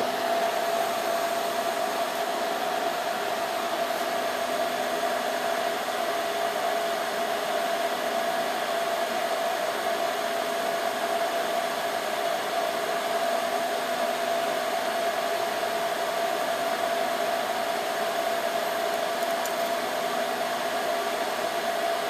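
Dell PowerEdge 2950 server running, its cooling fans giving a steady rushing noise with a constant mid-pitched hum.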